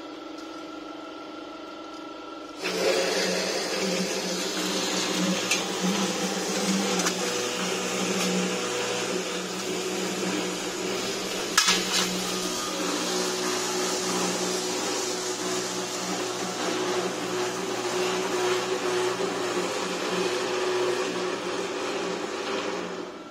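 Automatic 355 tube-cutting saw starting up about two and a half seconds in and running steadily, a motor whirring over the noise of the blade cutting steel box tube, then stopping just before the end. A single sharp metallic clink about halfway through.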